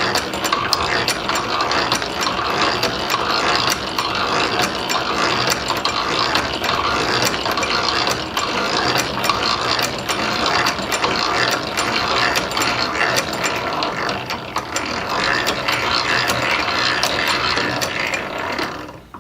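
Hand-cranked drill press in steady operation, its automatic feed pawl clicking as it ratchets the feed wheel and forces a 5/16-inch bit down into steel plate. The clicking and grinding stop abruptly shortly before the end, as the hole is finished.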